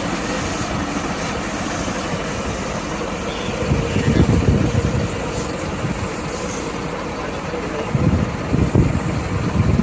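Vehicle engine idling steadily, with two stretches of louder low rumble about four and eight seconds in.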